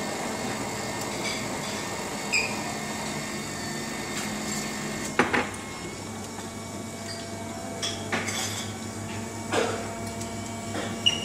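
Coffee machine pouring hot chocolate into a ceramic cup: a steady hum from the machine with the liquid running, and a few sharp clicks and clinks in the second half as the pour tapers to drips.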